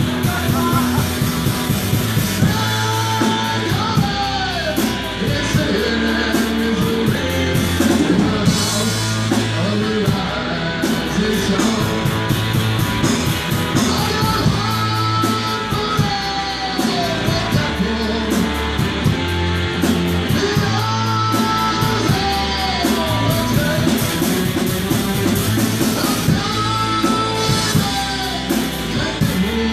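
Live rock band playing: electric guitars over a drum kit, with a melody line rising and falling above a repeating bass pattern.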